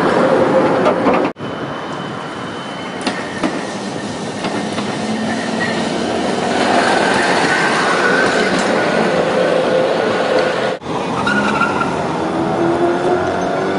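Trams running along street tracks: a Tatra tram rolling past close by, then other trams approaching, a steady rolling rumble with thin squealing tones from wheels on the rails. The sound breaks off sharply twice, about a second in and near the end, where the footage cuts between trams.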